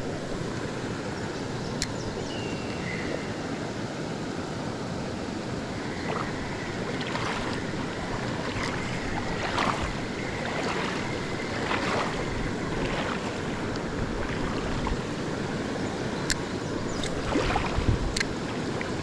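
Steady rush of flowing creek water, with a few light clicks.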